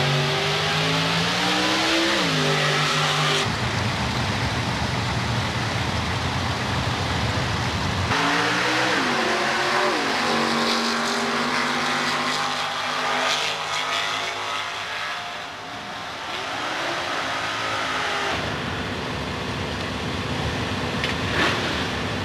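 Drag race car engines revving in the pits, rising and falling in pitch in the first few seconds and again about eight seconds in, over steady loud engine noise.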